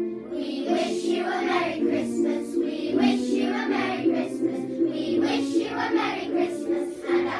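Children's choir singing a Christmas carol together over a steady instrumental accompaniment, the voices coming in just after the start.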